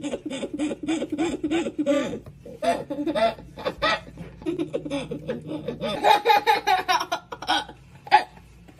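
A toddler laughing hard in rapid repeated bursts, the laughs going higher in pitch about six seconds in.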